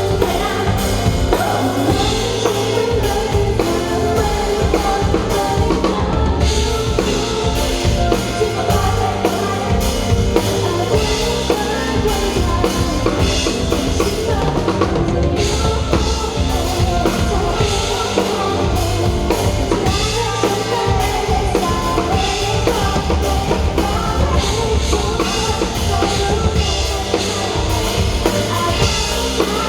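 Pop song played through a concert hall's sound system, with a full drum kit and bass drum driving a steady beat under a singing voice.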